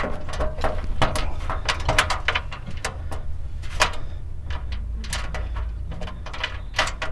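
Light clicks and knocks of small bolt hardware being handled and finger-threaded into the steel lid pivot of a cargo enclosure, over a low steady rumble.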